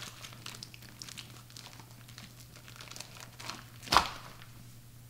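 Hands handling sandwich makings on a kitchen counter: soft crinkling and tearing of bread and deli meat. There is one sharp knock on the counter about four seconds in.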